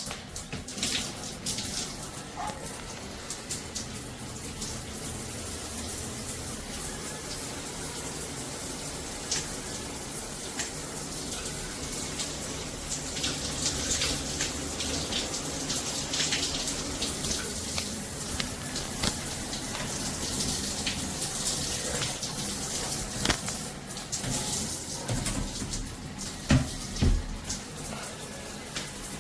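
Water spraying from a shower head and splashing, with scattered clicks and knocks and two louder thumps near the end.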